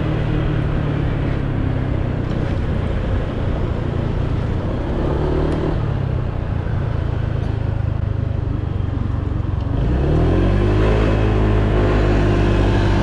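A Honda PCX 125 scooter's single-cylinder engine running under way, with wind rushing past. About ten seconds in the throttle opens: the revs climb quickly and then hold steady and louder, as the automatic CVT takes up the drive.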